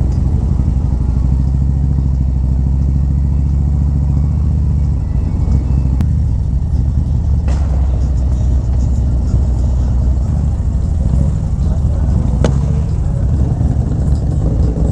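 Harley-Davidson touring motorcycle's V-twin engine running at low speed on gravel. The engine pulse changes about five seconds in as the bike slows, with a couple of sharp clicks later on.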